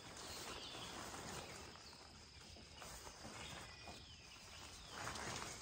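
Quiet rustling of nylon tent fabric as the centre pole of a one-pole tent is pushed up, growing louder about five seconds in, over a faint steady insect hum.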